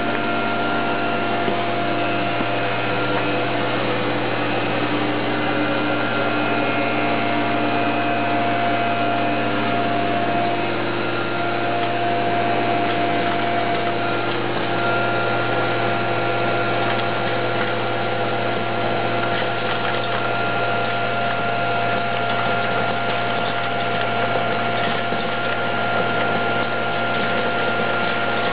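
Hot-air popcorn vending machine running: a steady blower-like whirr with a low hum and a few steady whining tones that drop out and come back now and then.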